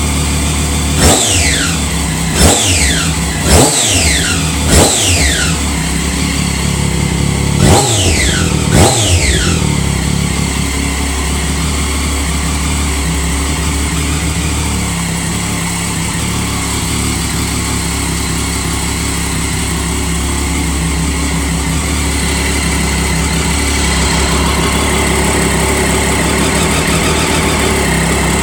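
2009 Triumph Daytona 675's inline-triple engine through an aftermarket TOR exhaust, idling and blipped six times in quick throttle revs, each rising sharply and falling back. After the last blip it settles to a steady idle.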